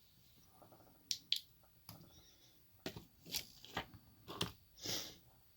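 Light clicks, taps and small scrapes of a pin-tumbler lock and metal tools being handled at close range, about eight short knocks spread through the few seconds.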